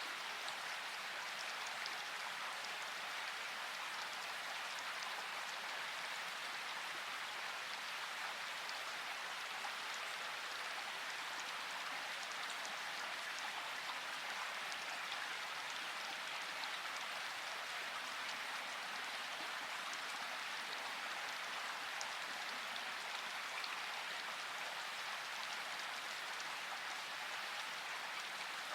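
Steady rain falling in a forest: an even hiss with scattered individual drop ticks, unchanging throughout.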